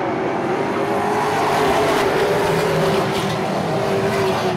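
A pack of Pro Stock V8 stock cars racing at speed, their engines blending into one steady, loud drone.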